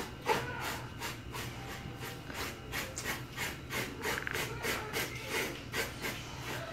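A blade scraping the scales off a flounder on a plastic cutting board in quick, rasping back-and-forth strokes, about four a second.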